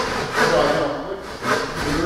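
Hand saw cutting across the grain of a wooden board, several back-and-forth strokes rasping through the wood to cut the wall of a dado along a knife line.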